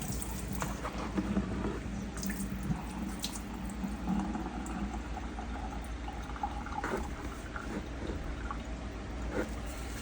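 Water splashing and dripping in a kitchen sink as raw chicken wings are rinsed and handled, with small wet clicks and knocks.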